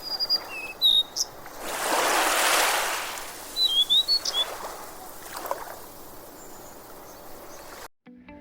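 Small birds chirping in short, sliding calls, twice in clusters, over a faint outdoor background, with a rush of noise that swells and fades about two seconds in. The sound cuts off abruptly near the end.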